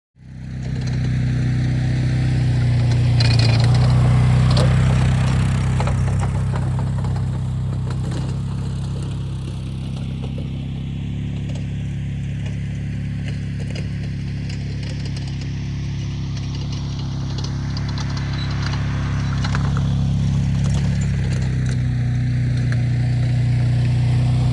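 UTV engine running steadily while under way, towing a roller crimper, with scattered rattling and clatter over the engine hum.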